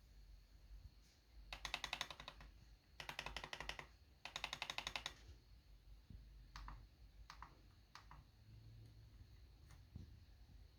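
Corsair K83 Wireless keyboard's low-profile scissor-switch keys being tapped: three quick runs of rapid keystrokes in the first half, then a few scattered single key clicks.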